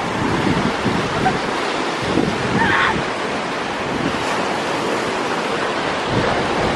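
Ocean surf rushing and washing steadily, with wind buffeting the microphone.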